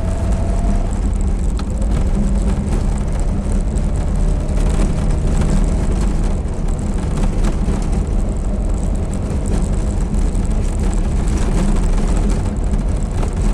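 Inside the cab of an IZh-2717 'pirozhok' van on the move: the engine and road noise make a steady drone. Small clicks and rattles from the body come through it now and then, the rattling and creaking the owner complains about in this van.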